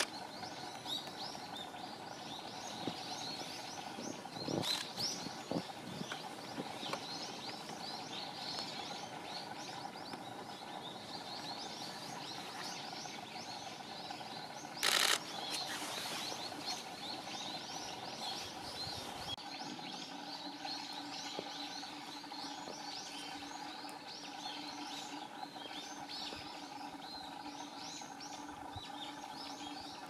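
Many small birds chirping in quick, overlapping high notes without a break, over a faint steady hum. A short burst of noise about halfway through.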